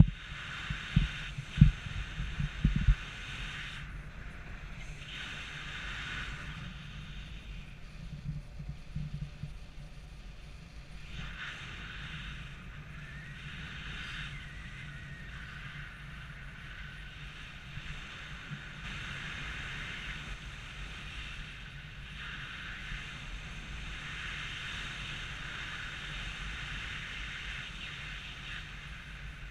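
Wind rushing over the microphone of a camera on a paraglider in flight, with heavy buffeting thumps about a second and two seconds in, then a steady rush.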